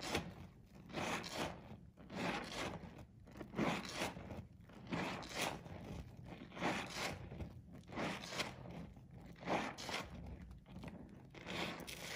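Fingers squeezing and squishing a soaked, softened bar of pink soap in foamy water. It gives repeated wet squelches with crackling lather, about one or two a second.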